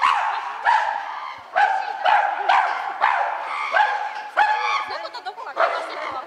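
Chimpanzee calling: a long run of loud, repeated barking calls, one after another about every half second to a second.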